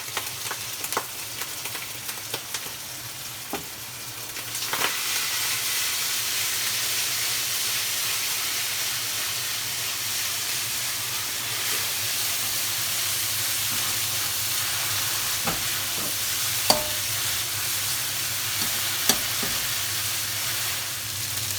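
Ground pork, garlic and chili bean paste sizzling in hot oil in a pan as they are stirred and fried until crispy, with a few sharp clicks. The sizzle grows louder about four and a half seconds in.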